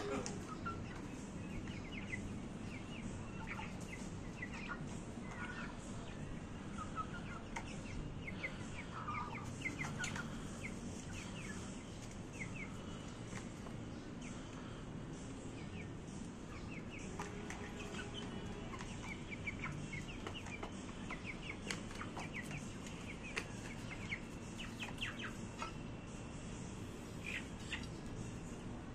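Young chickens clucking and giving short chirping calls again and again while they feed, with scattered light clicks.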